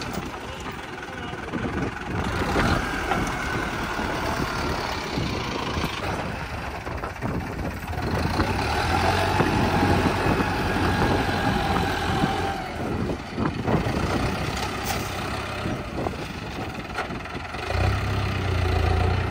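Diesel farm tractors running: a Mahindra 605 DI-i Arjun Novo working its front loader, alongside a Massey Ferguson 7250 DI. The engine noise is steady, with a louder low drone near the end.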